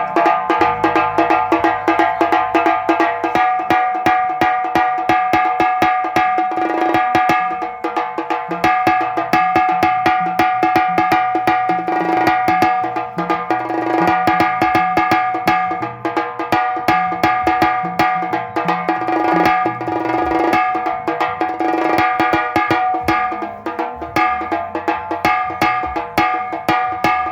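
Tassa drum played with sticks in fast, dense rolls and patterns, with a steady ringing tone under the strikes and a deeper drum beating along: a sound test of a new tassa drum.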